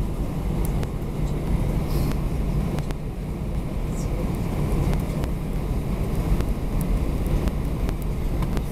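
Inside the cabin of an Airbus A320-214 taxiing after landing: a steady low rumble from its CFM56 engines at idle and the wheels rolling on the taxiway, with a few light clicks.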